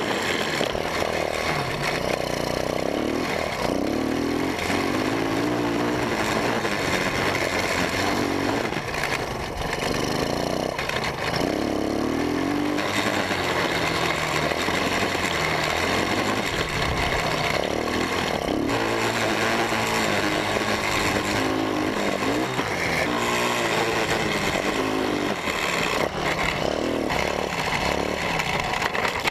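Vintage Honda motorcycle engine revving up and down as the bike is ridden hard over rough grass, its pitch rising and falling again and again, over a steady rushing noise.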